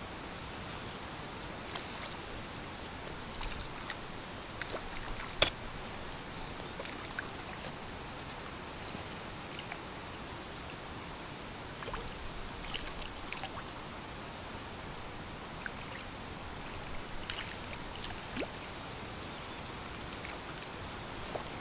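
Steady wash of wind and small waves lapping at a lake shore, with scattered light clicks from handling the tackle and one sharp click about five seconds in.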